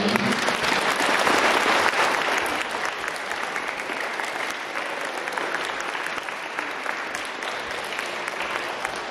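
Audience applauding, loudest over the first two to three seconds and then tapering off to steadier, lighter clapping.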